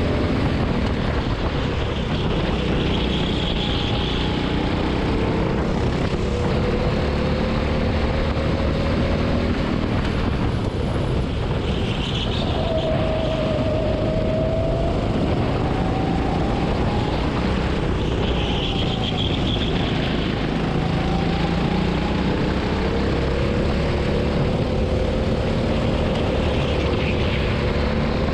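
Go-kart engine running at race pace, its pitch climbing and falling again and again as the kart accelerates out of corners and slows into them, over a steady rush of noise.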